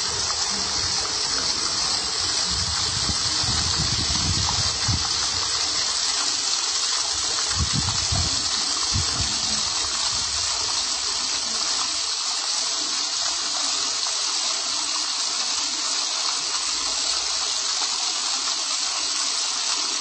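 Water sheeting down a tall water wall into a basin, with a row of small fountain jets splashing at its foot: a steady rushing and splashing. A few brief low rumbles come through in the first half.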